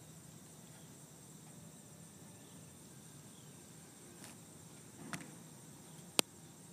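Football long snap: a soft thud and swish as the ball is snapped back, then about a second later a sharp slap as the punter catches it. A steady high insect drone runs underneath.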